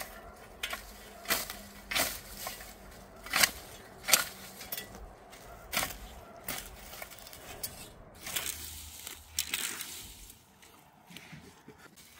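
Garden rake dragged through cut grass and soil in repeated strokes, a sharp scrape roughly once a second, then a longer rustling stretch about two-thirds of the way in.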